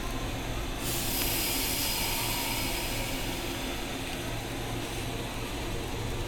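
Sudden hiss of compressed air from a Meitetsu 6000-series train's pneumatic system, setting in about a second in and slowly dying away over several seconds, over the train's steady low hum.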